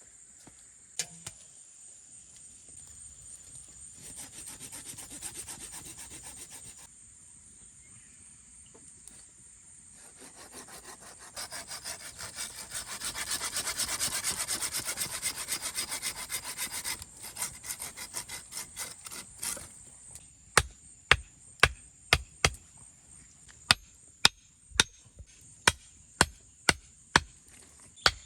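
Hand saw cutting wood in quick back-and-forth strokes, in two runs, the second longer and louder. Then a series of sharp chopping blows into wood, about two a second, near the end.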